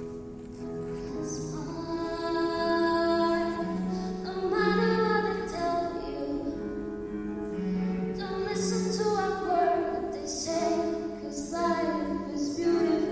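A choir singing, with long held notes that change about once a second.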